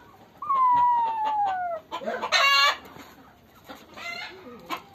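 A kitten's long meow falling in pitch, followed a moment later by a short, harsh cry, with chickens clucking around it.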